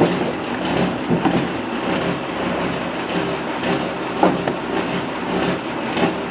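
Truck engine running steadily, with scattered metallic clicks and knocks over it.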